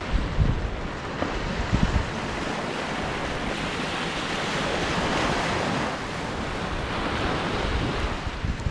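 Small waves breaking and washing up a sandy beach in a steady rush, with wind buffeting the microphone in gusts, strongest in the first two seconds.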